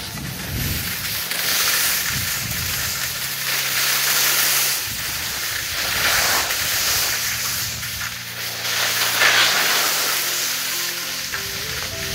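Rossignol Pursuit skis sliding and scraping over packed snow, a hiss that swells and fades with each turn. Faint background music with held low notes runs underneath.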